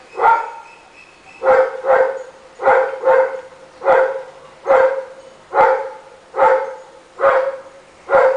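A Rottweiler barking over and over at a steady pace, about one bark a second, sometimes two in quick succession.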